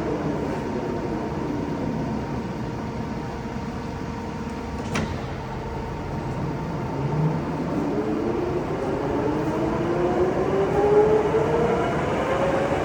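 STANKO 1M63 lathe running, its drive's pitched hum falling as the spindle slows over the first few seconds, a sharp click about five seconds in, then the hum rising steadily as the spindle speeds back up.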